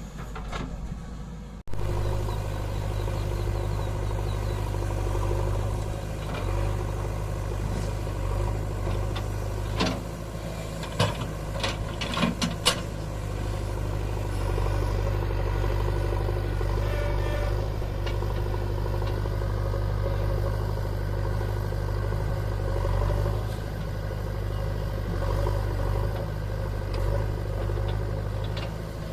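JCB 3DX backhoe loader's diesel engine running steadily with an even low hum, with a few sharp knocks and clatters about ten to thirteen seconds in.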